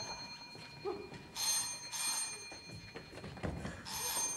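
Telephone ringing in double rings, one pair about a second and a half in and another starting near the end.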